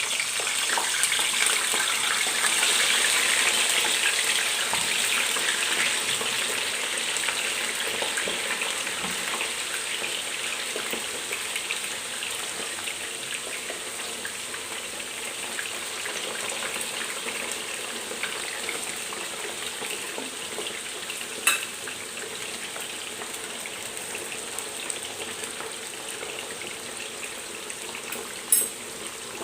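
Sliced potato rounds frying in hot oil and butter in a frying pan: a dense sizzle that is loudest just after they go in and slowly eases off. Two sharp knocks sound late on.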